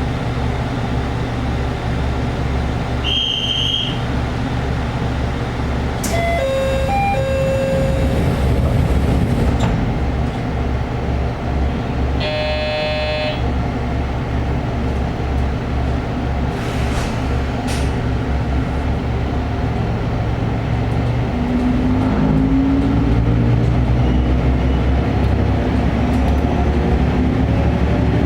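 Diesel railcar engine idling with a steady low throb that shakes the car, heard from inside the cabin, with a few short electronic beeps and a brief buzzer tone. Near the end the engine note rises.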